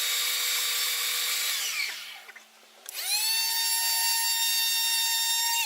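Small electric sander's motor whining as it sands soft cedar: it winds down and stops about two seconds in, then starts again about a second later and runs steadily before winding down at the end.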